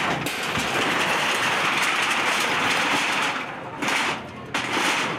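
Steady, loud clattering rush of demolition work, rubble and machinery breaking up a building. It eases off briefly twice near the end.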